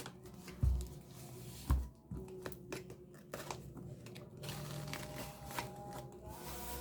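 Keyboard box and packaging being handled and opened: two dull thumps, about two-thirds of a second and just under two seconds in, then scattered clicks and rustling.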